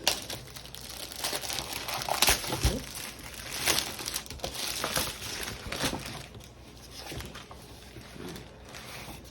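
Plastic packaging of a pack of shimmer vinyl sheets being handled and torn open, crinkling and crackling in irregular bursts. It is busiest and loudest over the first six seconds, then softer.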